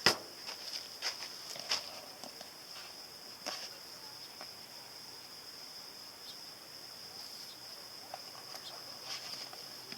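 Insects trilling in a steady high drone, with a sharp click at the start and a few lighter clicks and rustles in the first few seconds.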